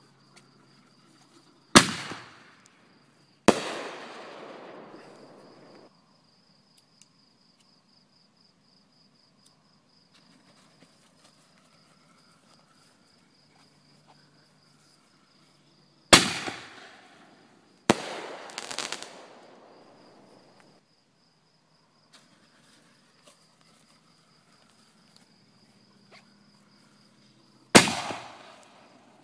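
Consumer fireworks going off: five sharp loud bangs, two in the first four seconds, two more around the middle and one near the end, each trailing off over a couple of seconds, with quiet gaps between. A steady high pulsing chirr runs underneath.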